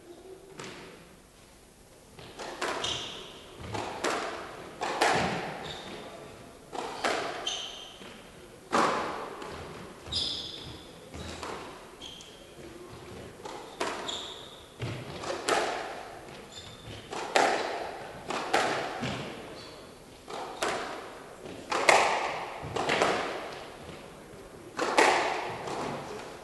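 Squash rally: the rubber ball is struck by rackets and hits the walls about once a second, each hit sharp and echoing round the hall, with short high squeaks from the players' shoes on the wooden court floor between the hits.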